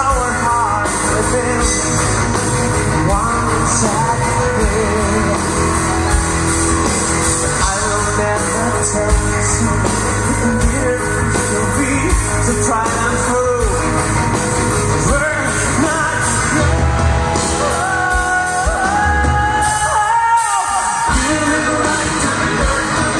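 Power metal band playing live: singing over electric guitars, keyboards and drums, heard from within the audience in a large hall.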